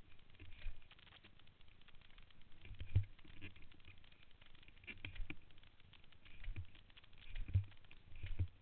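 Muffled, irregular thumps and a fine crackling rattle from a camera mounted on a moving dirt bike as it jolts over a rough dirt trail, the two strongest jolts about three seconds in and near the end.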